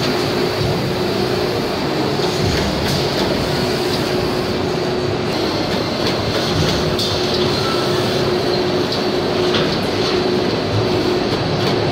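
Hydraulic plastic injection moulding machines running with a steady mechanical noise, a constant hum tone and a few scattered clicks.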